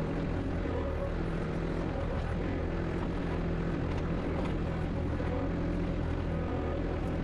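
Compact tractor's engine running steadily under hydraulic load while its backhoe attachment digs.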